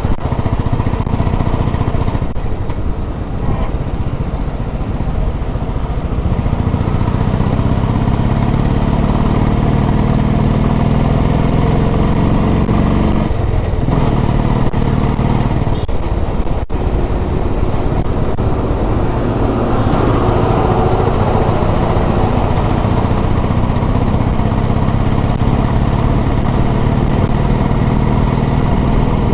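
Royal Enfield Bullet single-cylinder motorcycle engine heard from the riding bike, pulling along the road. Its pitch rises gradually, breaks briefly about halfway through, then holds steady, with wind rushing over the microphone throughout.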